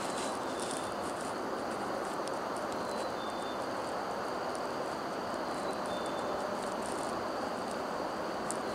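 Steady outdoor background noise, a constant even hiss, with many faint high ticks and a few short, faint high peeps scattered through it.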